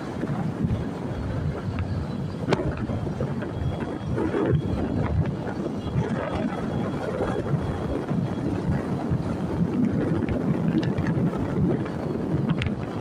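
Steady rumble of a moving road vehicle, with wind buffeting the microphone and a few faint clicks.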